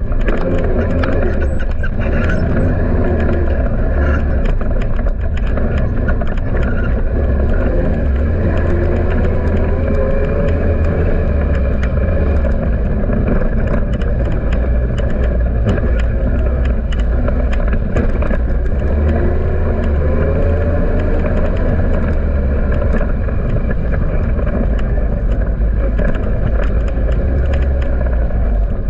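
Polaris Sportsman 800 ATV's twin-cylinder engine running steadily as it rides along a dirt trail, with a heavy low drone. The engine pitch climbs twice as it accelerates, about a third of the way in and again about two-thirds in, over scattered clicks and knocks.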